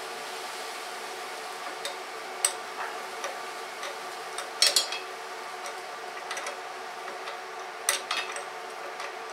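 Metal parts of an air compressor being handled and refitted by hand: a scatter of sharp metallic clicks and clinks, the loudest a quick cluster about halfway through and another near the end, over a steady hum.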